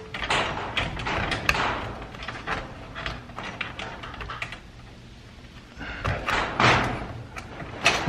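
Steel roller chain of a chain-drive garage door opener clinking and scraping against the opener's metal chassis and sprocket as it is pulled back and seated by hand. There are irregular clicks, thickest in the first few seconds, then a louder scrape about six seconds in.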